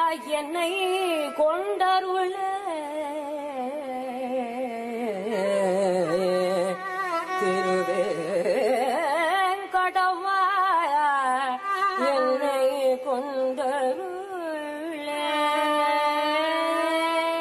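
Carnatic violin played with the bow in one continuous melodic line, sliding and shaking between notes in gamakas, settling into long held notes near the end.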